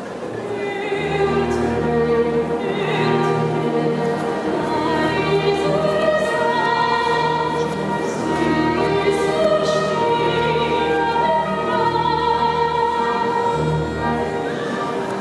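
Operatic soprano singing with vibrato over a sustained instrumental accompaniment.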